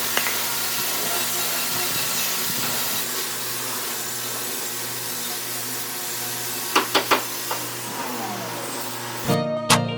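Steady hissing rush of a motor-driven air tool with a constant low hum, a few sharp clicks about seven seconds in, and the sound falling away near the end as plucked guitar music starts.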